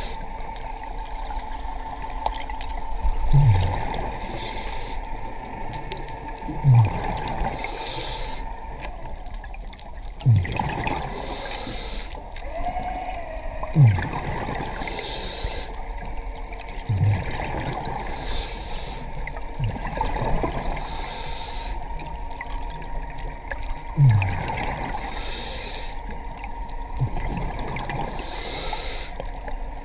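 Scuba diver breathing through a regulator underwater. A short hiss comes with each inhale, and a low gurgle of bubbles with each exhale, about every three to four seconds.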